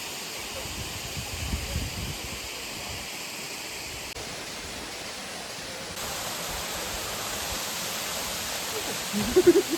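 Steady rushing of a waterfall's falling water, with a brief voice cutting in near the end.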